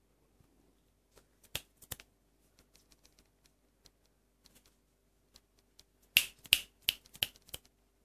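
Sharp clicks and taps of a kitten's claws and paws on a washing machine's drum, scattered at first, then a quick run of five or six louder clicks about six seconds in.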